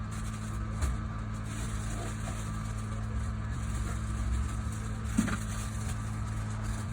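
Hot air rework station blowing steadily while it heats the solder of a replacement FPC connector on a phone board, with a light tap about five seconds in.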